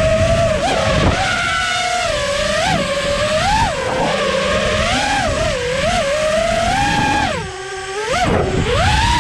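Four Emax ECO II 2306 1700kv brushless motors on an FPV racing quad, spinning Gemfan three-blade props on a 6S battery, whining and swooping up and down in pitch with the throttle. There is a sharp throttle chop about seven and a half seconds in, then a climb back up, with wind rush on the onboard camera's microphone underneath.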